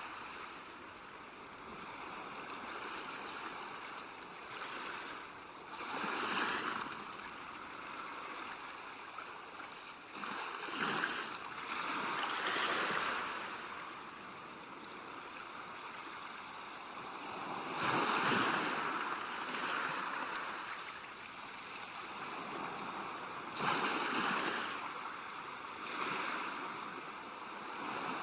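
Ocean waves breaking and washing in: a steady hiss of surf with a louder rushing surge every four to six seconds.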